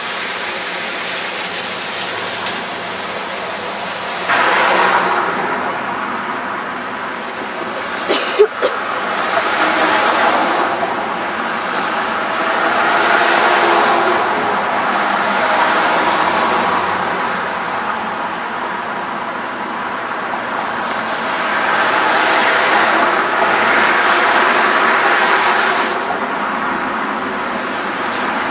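Road traffic: several cars passing in turn, each a slow swell and fade of tyre and engine noise. There is a brief sharp knock about eight seconds in.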